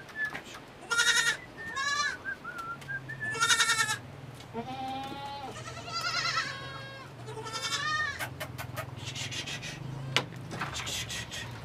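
A flock of goats bleating repeatedly, one quavering call after another every second or so, as they are driven into a shed.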